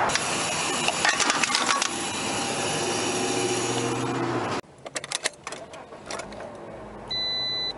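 Sharp metallic clicks and clinks over steady outdoor background noise at a gas pump during fuelling. About halfway through, the sound cuts to a much quieter car interior with a few soft clicks, and near the end a short high electronic beep sounds once.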